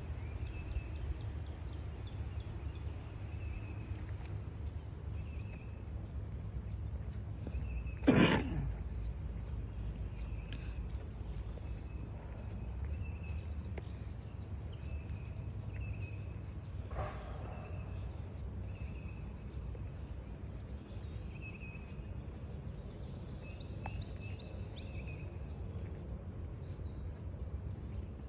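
A bird repeats a short high call about every second and a half over a steady low rumble. A single loud, sudden sound about eight seconds in, and a fainter one about seventeen seconds in.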